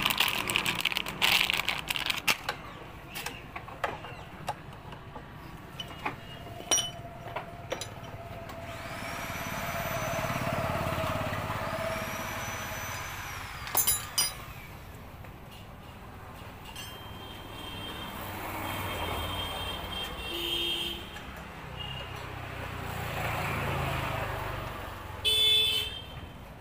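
Street traffic passing a roadside workshop: vehicles swell and fade three times, with scattered light metallic clicks and a few short high-pitched tones.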